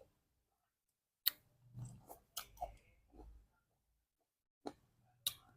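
Close-miked eating of fruit: a sharp click about a second in, then a couple of seconds of chewing, and two more short clicks near the end.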